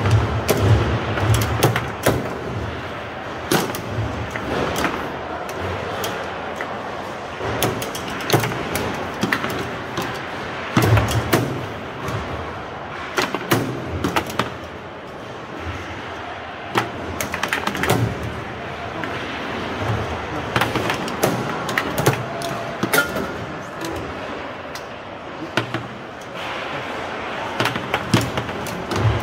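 Foosball rally: the hard ball struck, trapped and passed by the plastic figures, with sharp irregular knocks and clacks of the ball and metal rods against the table, a goal scored along the way. A steady background din runs underneath.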